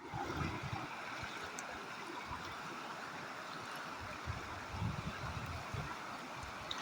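Mountain stream running steadily, a continuous rush of water.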